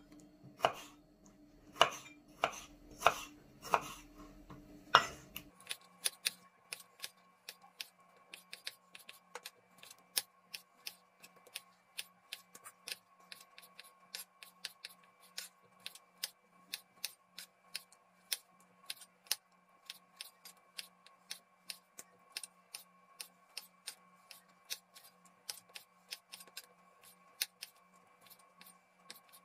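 A kitchen knife slices cherry tomatoes on a wooden cutting board, knocking sharply on the board with each cut, about seven loud knocks in the first five seconds. After that comes a long run of fainter, quick, even ticks.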